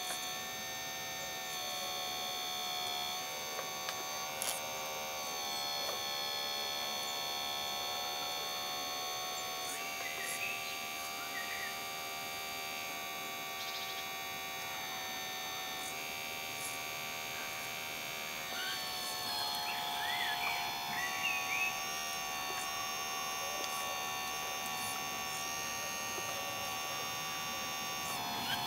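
Hydraulic pump of a radio-controlled model hydraulic excavator running with a steady whine made of several tones. The pitch and mix of the whine shift a few times as the valves work the boom and bucket while it digs and lifts.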